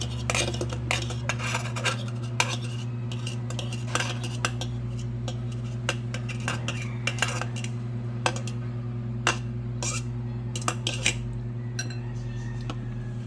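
A metal fork clinking and scraping against a glazed ceramic bowl while noodles are stirred, in irregular taps a few times a second, over a steady low hum.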